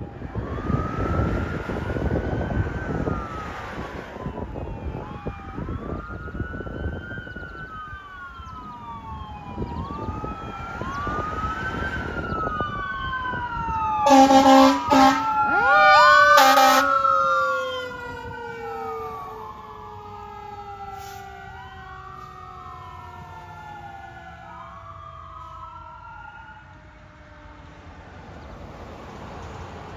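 Fire truck siren wailing, rising and falling every three or four seconds, over heavy engine rumble in the first few seconds. A little before halfway, a few loud air horn blasts in quick succession are the loudest sound; a lower siren tone winds up with them and then slowly winds down as the wail fades.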